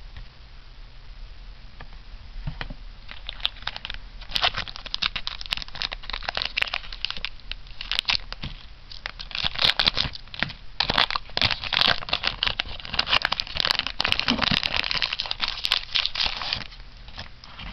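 Foil trading-card booster pack wrapper crinkling and tearing as it is handled and opened by hand. It starts about three seconds in and stops shortly before the end.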